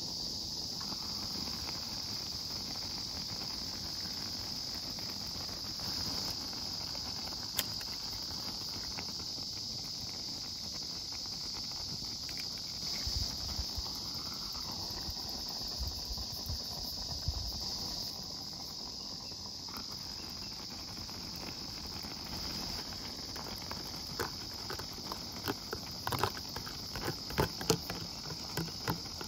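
Steady high-pitched chirring of summer insects, with a scatter of light clicks and taps in the last few seconds.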